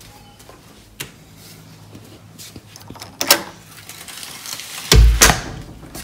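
Knocks and handling noises while a package is carried indoors: a sharp click about a second in, another short knock a little after three seconds, and a loud low thud about five seconds in.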